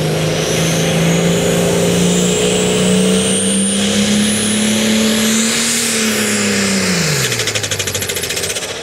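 Super Farm class pulling tractor's diesel engine at full throttle under load as it pulls the sled, its pitch climbing slowly. About six seconds in the pitch drops sharply as the engine is throttled back at the end of the run, and near the end the sound pulses rhythmically.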